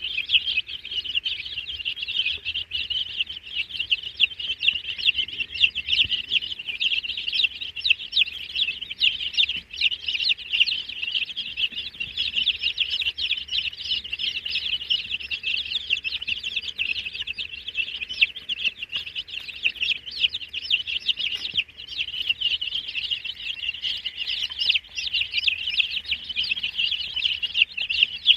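A brood of dozens of baby chicks peeping together: a dense, unbroken chorus of short, high chirps overlapping one another.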